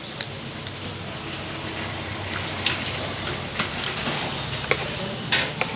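Spoon and fork clicking against a ceramic plate of noodle soup: several short, sharp clicks over a steady background hum.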